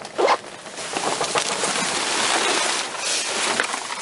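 Rummaging through a dumpster: discarded items rustling, shifting and knocking against each other in a dense run of scrapes and clicks, with a brief louder sound just at the start.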